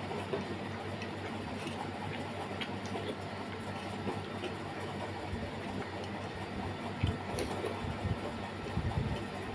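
Someone eating biryani: faint chewing and small clicks of hand or utensil against the plate, with a few low thumps near the end, over a steady background hum.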